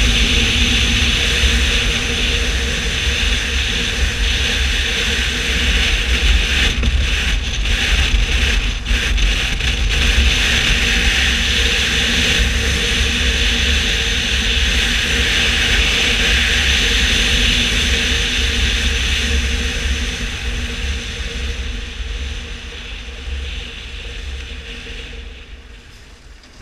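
Steady wind rush and road noise of a BMW R1200 motorcycle ridden at speed, with a low engine rumble underneath. It dies down over the last few seconds as the bike slows.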